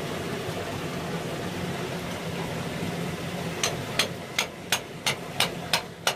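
Hammer striking a chisel against oyster shells on a concrete culvert wall, knocking the oysters loose: sharp, evenly spaced knocks, about three a second, starting a little past halfway. Under them is a steady low hum.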